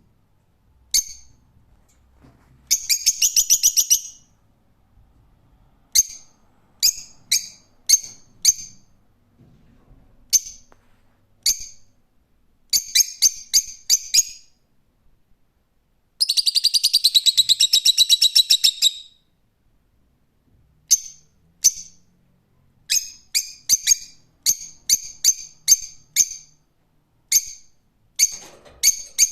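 Lovebird calling: sharp, high-pitched chirps, singly and in quick runs, with two longer chattering trills, the longer about three seconds long a little past the middle.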